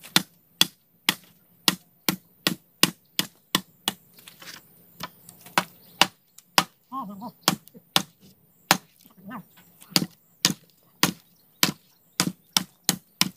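A rapid, uneven series of sharp blows of a hand tool striking wood, about two to three a second, from work on wooden fence posts.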